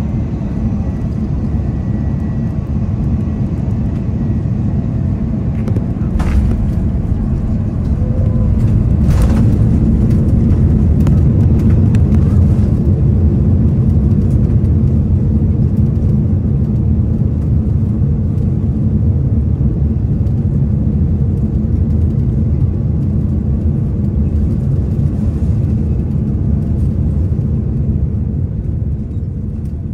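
Cabin noise of an Airbus A330-900neo on its landing roll at night: a loud low rumble of wheels and engines. Two sharp knocks come about six and nine seconds in, then the rumble swells and holds, easing slightly near the end.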